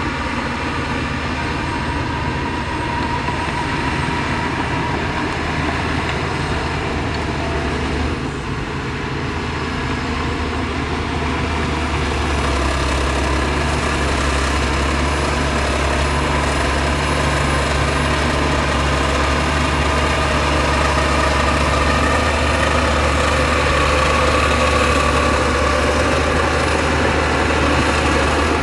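Heavy diesel engines of earthmoving machinery running steadily, a low drone that dips briefly about eight seconds in and grows a little louder after about twelve seconds.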